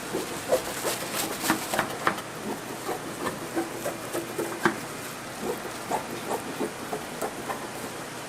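Irregular clatter of pizza-making kitchen work: quick taps, knocks and short scrapes at an uneven pace, busiest in the first half.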